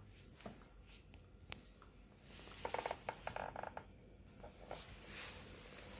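A West Highland white terrier biting and licking a plush toy: faint wet chewing and licking noises with snuffling breaths, and a quick run of rhythmic mouthing sounds about halfway through.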